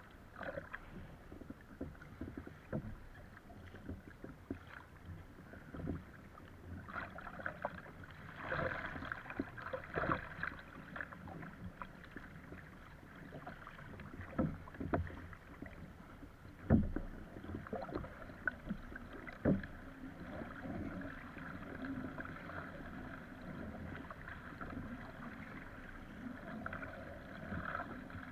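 Choppy water slapping and splashing against an Epic V7 surfski's hull as it is paddled through waves, with paddle blades dipping and irregular sharper slaps; the loudest slap comes about 17 seconds in.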